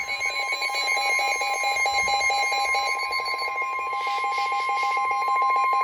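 Emergency Alert System attention signal: a steady, high-pitched alarm tone held unbroken, over a rapidly pulsing buzz lower down, sounding ahead of a severe thunderstorm warning.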